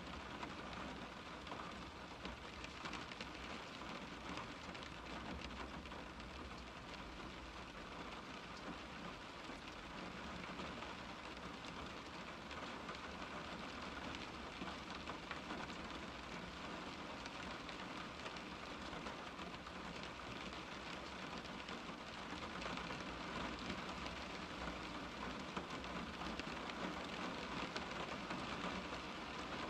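Steady rain pattering on a car's window glass, heard from inside the car as a dense stream of small drop ticks, growing a little louder near the end.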